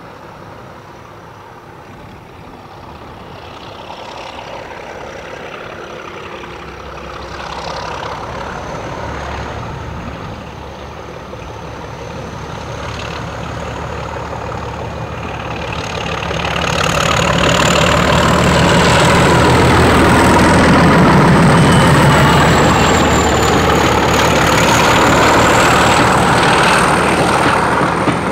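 Mainline diesel locomotive engine approaching and passing at the head of a passenger train, growing louder as it nears and loudest from about two-thirds of the way in. A thin high whistle runs over the engine sound throughout.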